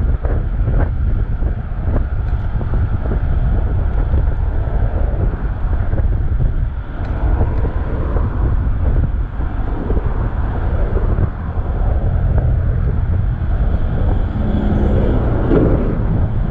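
Wind buffeting the microphone of a chest-mounted action camera on a moving bicycle, over road traffic noise, with a low hum from a passing vehicle near the end.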